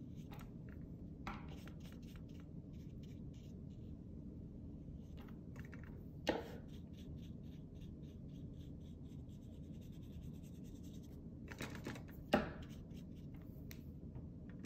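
Fine paintbrush strokes on envelope paper: faint repeated scratching and rubbing, with two light knocks, one about six seconds in and one about twelve seconds in.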